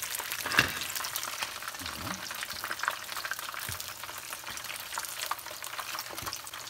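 Battered lamb brain fritters deep-frying in a pan of hot oil, fried golden: a steady crackling sizzle with scattered sharper pops.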